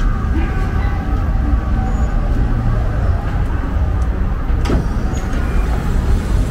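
Low steady rumble of a vintage yellow Milan tram beside the pavement, mixed with city street traffic, with a single clunk about three quarters of the way through.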